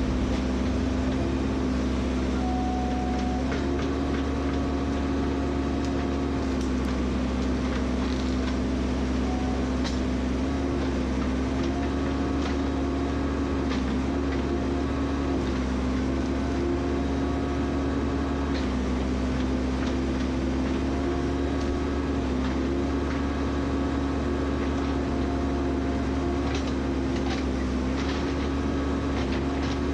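Engine running steadily at a constant speed under light load, its pitch dipping and recovering slightly now and then, with scattered small knocks.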